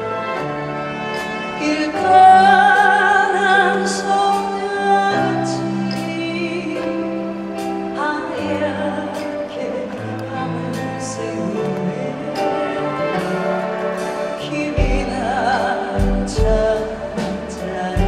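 A woman singing a slow Korean ballad live with a band: sustained keyboard chords, bass and light drums under her voice, which holds long notes with a wide vibrato. A deep bass-drum beat comes in near the end.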